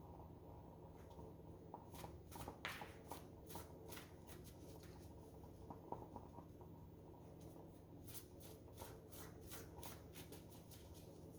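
A deck of oracle cards being shuffled: two quick runs of soft card flicks, each lasting about two and a half seconds, the first about two seconds in and the second near the end, over a faint room hum.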